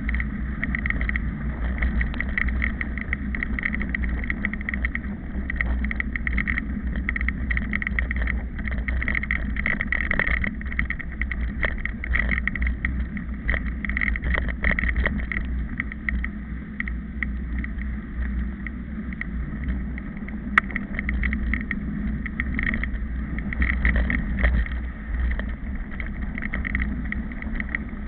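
Mountain bike riding over a bumpy dry dirt track: wind rumbles steadily on the microphone, with frequent rattles and knocks of the bike and camera over the rough ground and one sharp click about twenty seconds in.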